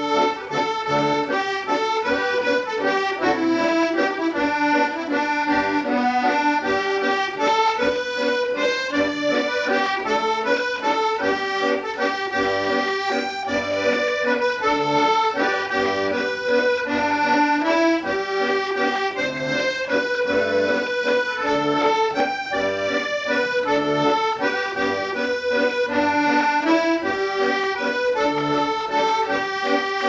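Accordion playing a traditional tune, a medley of melody over a steady bass accompaniment.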